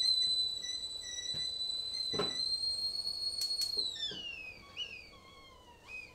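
Stovetop whistling kettle giving a steady, high-pitched whistle, with a sharp knock a little after two seconds in. About four seconds in, the pitch slides down and the whistle breaks into fading, wavering chirps as the kettle is lifted off the heat.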